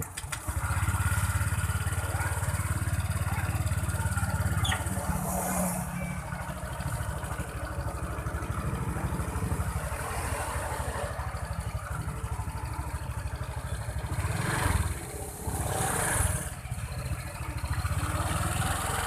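Honda Vario 125 scooter engine starting about half a second in, then running, with the level shifting now and then.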